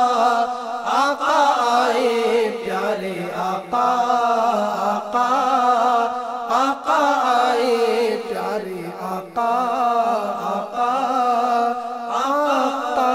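Naat sung by a male voice in a slow, wavering chant, held over a steady low drone.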